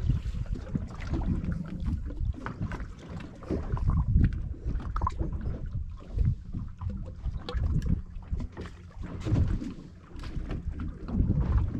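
Wind buffeting a GoPro's microphone aboard a fishing boat, coming in uneven gusts of low rumble, with scattered small clicks and knocks.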